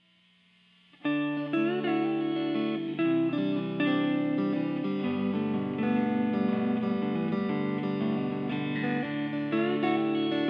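Instrumental background music with plucked strings, starting suddenly about a second in and running on with changing notes.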